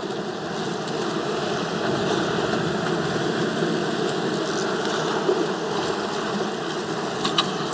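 An engine running steadily: a constant low hum under a noisy rush, with a couple of faint clicks near the end.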